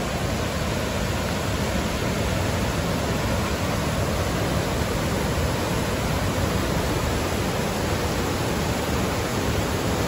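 Bopath Ella waterfall and the rapids below it: a steady, even rush of falling and tumbling water over rock.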